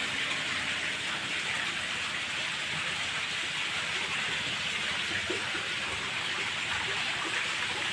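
Steady hiss of splashing, running water, even and unbroken, like water pouring or aerated in fish tanks.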